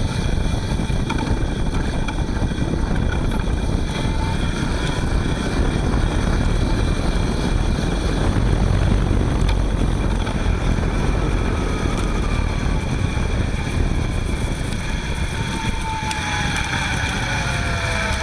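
Front hub motor of a Panasonic ViVi Charge electric-assist bicycle running while riding, a steady whine over a hiss, with wind rumbling on the microphone; near the end a tone glides down in pitch. The hiss is heard for the first few minutes of a cold winter ride, which the owner puts down to stiffened grease inside the hub motor.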